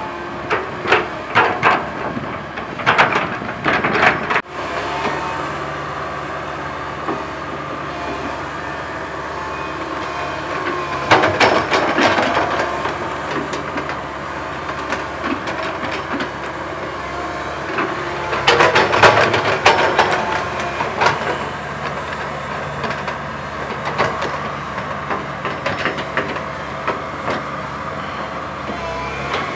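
Komatsu PC130 hydraulic excavator's diesel engine running steadily, with three spells of metallic clatter and squealing: at the start, about eleven seconds in, and about nineteen seconds in.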